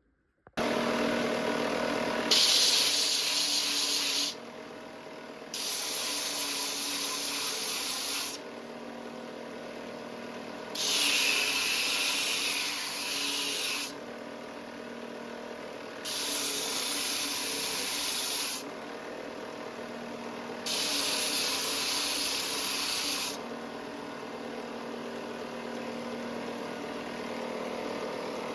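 Electric power tool running steadily on wood, growing louder and hissier in about five passes of two to three seconds each as it bites into the work, then cutting off at the very end.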